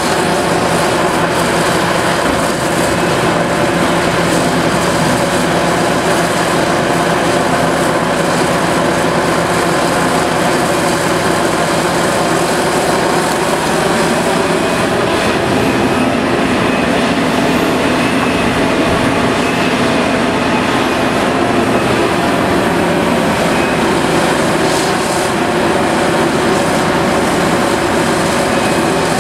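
Diesel engines of a large hydraulic excavator and articulated dump trucks running steadily under load, with slight shifts in engine pitch as the machines work.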